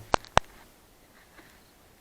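Two sharp clicks about a quarter second apart, just after the start.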